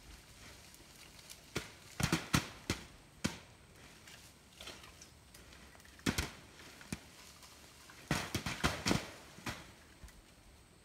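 Sharp knocks and thuds in irregular bursts as a long apple-picking pole shakes a wild apple tree and apples drop onto a plastic tarp. The heaviest clusters come a couple of seconds in, around the middle, and near the end.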